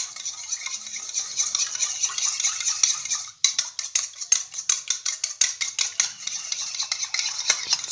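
A metal utensil beating an egg wash of egg, milk and pepper in a small ceramic bowl: rapid, quick clicks against the bowl, with one brief pause about three and a half seconds in.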